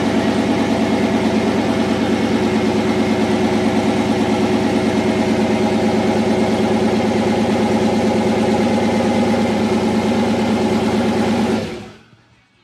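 Turbocharged 5.3 L LS V8 idling steadily with an even pulsing. The sound falls away about twelve seconds in.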